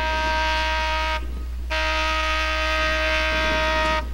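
Diesel locomotive air horn on an ex-C&NW E8A blowing long blasts, as for a grade crossing: one long blast cuts off about a second in, and a second long blast starts half a second later and runs until a brief break near the end.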